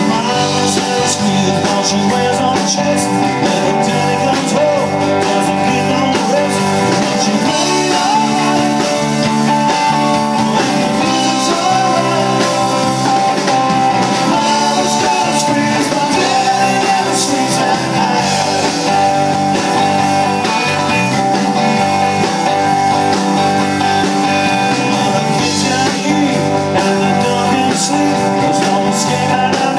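Live rock band playing: electric guitar, electric bass and a drum kit, with the lead singer singing into the microphone over them, at a steady full volume.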